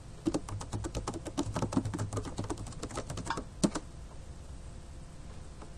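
Typing on a computer keyboard: a quick run of key clicks lasting about three and a half seconds, ending in one louder keystroke.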